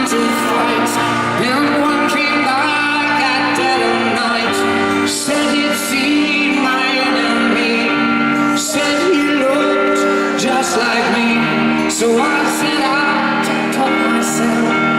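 Live band music: a slow pop ballad played on stage, with sustained chords and singing.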